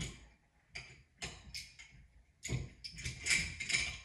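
Small clicks and scraping from shower trim parts being fitted by hand at the wall valve: a few separate clicks, then a busier stretch of clicking and scraping from about halfway through.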